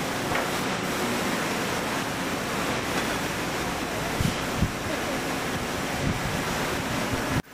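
Steady, loud rushing noise of woodworking-factory machinery, with a few dull thumps along the way. It cuts off suddenly near the end.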